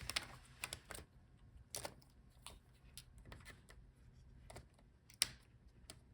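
Scattered light clicks and taps of small plastic parts being handled inside an opened laptop as the speaker cable connector is unplugged and the speakers are worked loose, with one sharper click about five seconds in.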